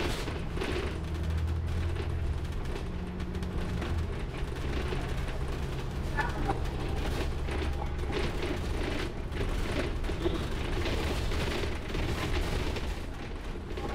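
Inside a moving bus: a steady low engine and road rumble, with the body and fittings rattling and knocking now and then.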